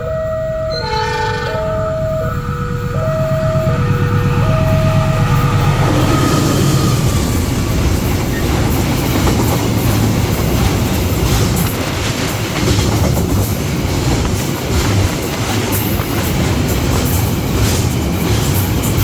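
Level-crossing warning alarm sounding in an alternating two-tone pattern, with a short train horn blast about a second in. From about six seconds on, a fast train passes through the crossing with loud, steady wheel rumble and clatter.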